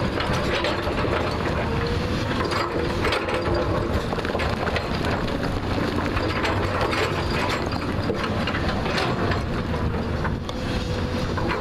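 JCB 3DX backhoe loader's diesel engine running steadily under load while digging, with frequent short knocks and scrapes from the work.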